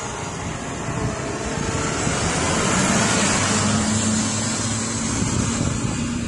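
Farm tractor engine running under load in the field, a steady low drone that grows a little louder and clearer about halfway through.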